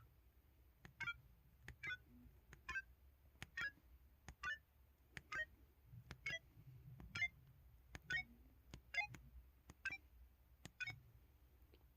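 LG-KH8000 mobile phone's '8 Bit' keypad tone: a light key click followed by a short electronic beep at each button press, repeated about once a second, the pitch changing from press to press.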